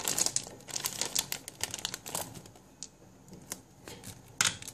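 Clear plastic bag holding small white plastic marbles crinkling as it is handled and opened, most densely in the first two seconds or so. A few light, sharp clicks follow later.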